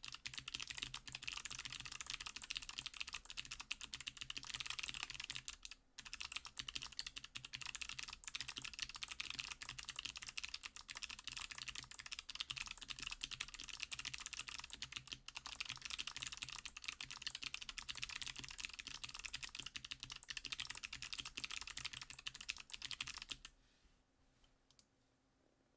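Fast typing on an acrylic-cased Majbritt mechanical keyboard with Kailh Box Jade clicky switches on an FR4 plate, under GMK keycaps: a dense, rapid stream of sharp clicks. There is a brief pause about six seconds in, and the typing stops about two seconds before the end.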